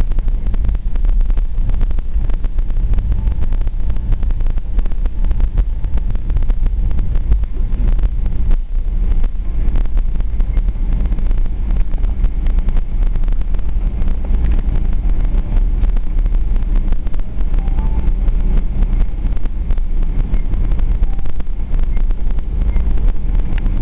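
Airliner cabin noise while rolling along the runway after landing: a steady low rumble from the wheels and engines, with constant small rattles and bumps.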